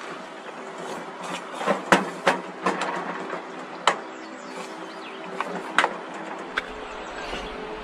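Camp cookware and utensils knocking and clattering during lunch preparation, about eight separate sharp knocks spread over several seconds, over a steady low hum.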